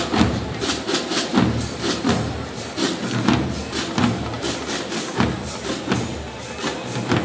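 Marching band (fanfarra) percussion playing a steady, driving rhythm: sharp repeated drum and stick hits over low bass drum strokes.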